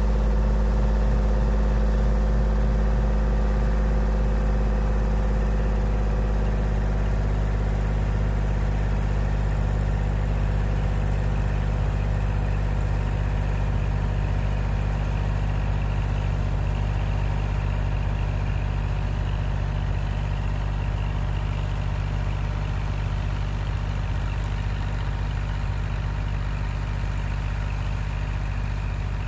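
Kubota L2501 compact tractor's three-cylinder diesel engine running steadily under load while driving its rear-mounted snowblower through deep snow. The sound fades gradually as the tractor moves away.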